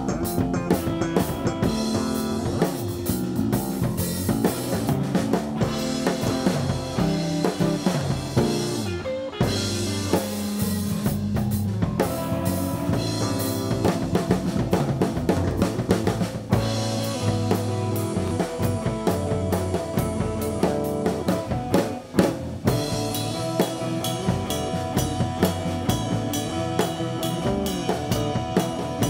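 Live rock band playing an instrumental passage: electric guitar, bass guitar and drum kit, with a brief drop in the playing about three quarters of the way through.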